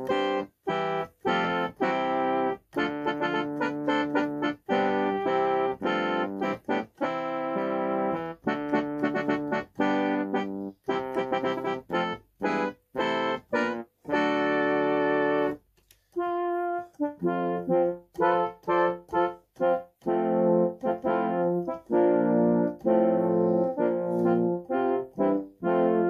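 Yamaha PSR-60 home keyboard played by hand in one of its preset voices, dry without reverb: a melody of notes and chords in short phrases with brief gaps. The tone changes after a short pause about two-thirds of the way through.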